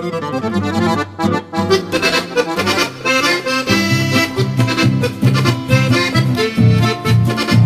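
Accordion-led chamamé music; about three and a half seconds in, a pulsing bass line comes in under the melody with a steady beat.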